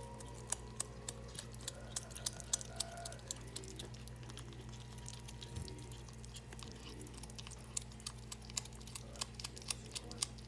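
Ferrets chewing raw meat: irregular sharp clicks and crunches of teeth on meat, thicker in the first few seconds and again near the end, over a steady low hum.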